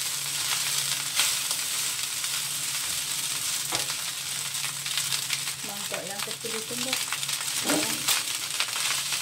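Fried rice sizzling in a wok over a gas flame while a wooden spatula stirs and scrapes it, with scattered sharp clicks of the spatula against the wok.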